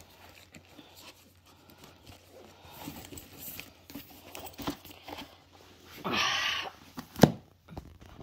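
Books and a goodie bag being handled: faint scattered rustles and taps, a short rustle about six seconds in, then a sharp knock as a paperback is set down on the wooden floor.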